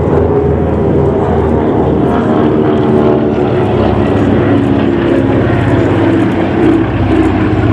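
Radial piston engines of a C-47 and Beech 18s flying in formation, a loud, steady, throbbing propeller drone with slight shifts in pitch.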